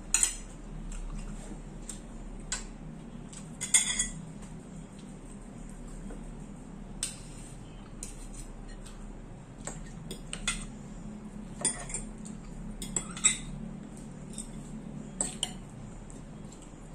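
A fork and spoon clinking and scraping against a bowl and plates during a meal: irregular short sharp clinks every second or so, the loudest right at the start and about four seconds in.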